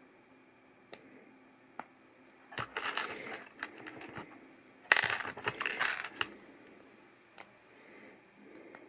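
Plastic LEGO pieces clicking and clattering: a few single sharp clicks, with two bursts of rapid rattling in the middle, the second one louder.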